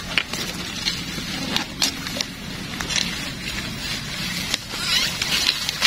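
Grass and leafy plants rustling and snapping as they are pulled by hand, with scattered crackles over a low steady hum.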